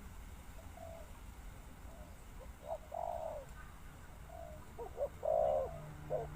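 Spotted dove cooing: a few short, hoarse coos, a faint one near the start and louder ones about three and five seconds in.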